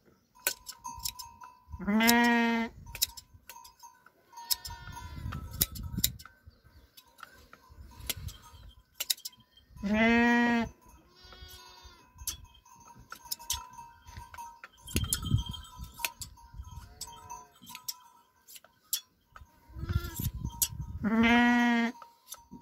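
A sheep bleating loudly three times, each call long and pitched, with fainter bleats in between, while it is being hand-sheared. Short sharp clicks, likely the shear blades snipping through the fleece, run through it.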